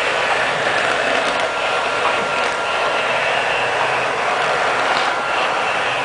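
Robot vacuum cleaner running: the steady whir of its suction fan and brush motors, with a faint high whine.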